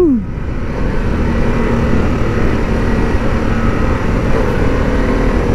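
Harley-Davidson Pan America's Revolution Max 1250 V-twin running while riding at speed, mixed with heavy wind rush on the microphone.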